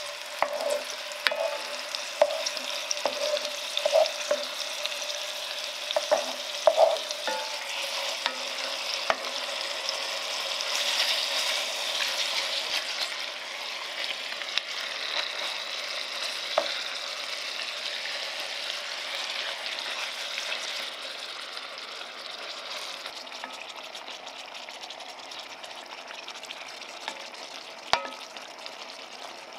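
Pork neck steaks and chopped onion sizzling as they fry in an enamelled cast-iron pan, with a wooden spatula knocking against the pan many times in the first several seconds. The sizzling grows louder about ten seconds in, then settles to a softer sizzle, with one sharp knock near the end.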